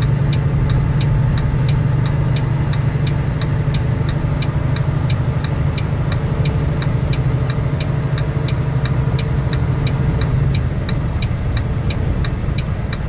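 Inside a semi-truck's cab while driving: the engine and road make a steady low drone, and an even ticking repeats about three times a second.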